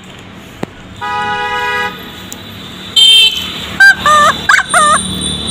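Plastic trumpet horn on a child's bicycle sounding several times. There is a steady toot about a second in, then a short, loud blast at about three seconds, then a few quick squeaky notes that bend up and down.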